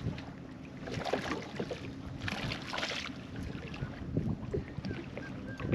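Water sloshing and splashing around a fishing boat with wind on the microphone, a few swells of splashing and small knocks of handling gear on board.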